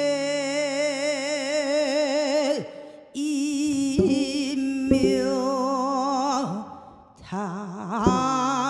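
A woman singing Korean traditional vocal music (sori) into a microphone, holding long notes with a wide, even vibrato and pausing twice, over low sustained accompaniment. Sharp drum strikes come about four, five and eight seconds in.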